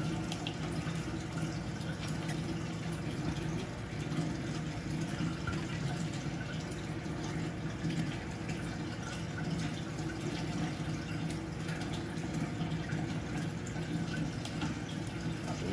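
Aquarium water trickling and bubbling steadily, from the tank's filter flow and air bubbles.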